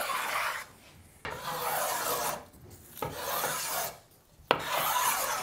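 Sharp low-angle Jorgensen block plane shaving red cedar: four even strokes about a second long each, each a dry rasping hiss as a curl of soft wood peels off, with short pauses between.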